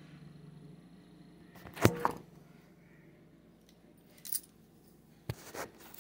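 A few sharp knocks and clicks, the loudest a close pair about two seconds in and smaller ones later, over a faint low hum.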